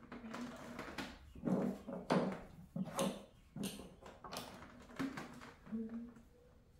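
A quick run of short rustling, knocking handling noises, about two a second for several seconds, as tools are handled and picked out beside the potter's wheel.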